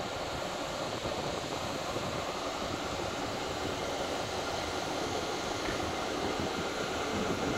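Two SU160 diesel locomotives running light at low speed, giving a steady engine hum that grows a little louder near the end as they come closer.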